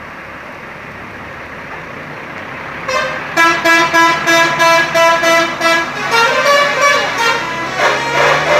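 Steady bus engine and road noise. About three seconds in, a telolet horn on a super-high-deck bus starts up. This is the multi-tone musical air horn of Indonesian buses, and it plays a fast run of repeated notes, about four a second. Near the end it switches to a different tune with sliding notes.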